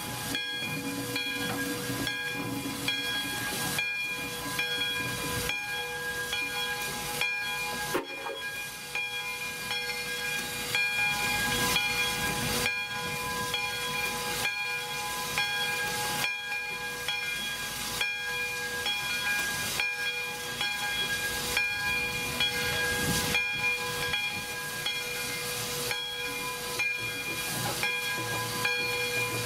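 Atchison, Topeka and Santa Fe #3415, a 1919 Baldwin 4-6-2 Pacific steam locomotive, hissing steam at low speed. Several steady tones run under the hiss, with faint knocks recurring through it.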